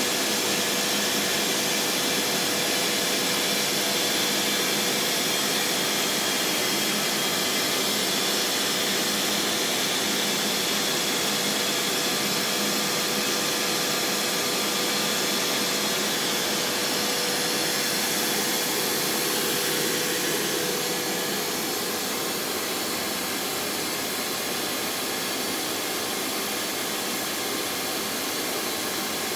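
Trak TMC7 vertical machining center running: a steady whirring hiss with a faint steady whine in it, a little quieter from about two-thirds of the way through.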